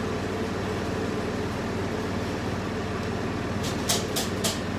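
Steady low background hum, with a quick run of four crinkles from a plastic snack packet being handled near the end.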